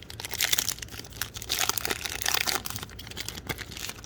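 Plastic wrapper of a trading-card pack being torn open and crinkled by hand: a dense run of crackles and rustles.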